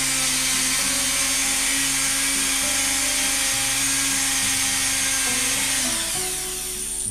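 Dremel rotary tool with a sanding drum running at speed and sanding a small wooden part: a steady high whine over a rough grinding hiss, easing slightly near the end and then cutting off.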